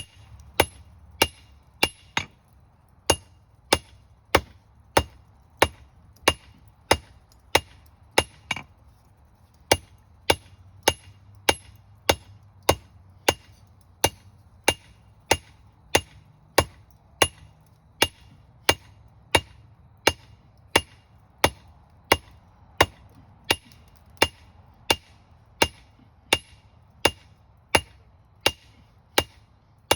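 Blacksmith's hammer striking hot steel on an anvil while drawing out a square taper on a marking stake: steady blows about three every two seconds, each with a bright ring, with a short break about nine seconds in.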